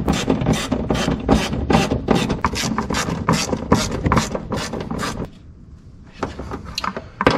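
Hand ratchet running nuts down onto the pedal-plate bolts through the truck's firewall, a fast even clicking of about four clicks a second. It stops about five seconds in and starts clicking again near the end.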